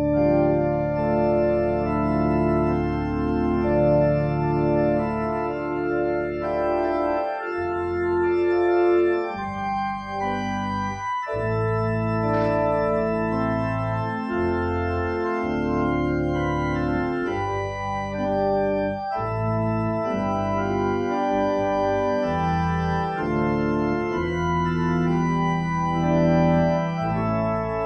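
Church organ playing slow, sustained chords over a low pedal bass line, changing chord every second or two.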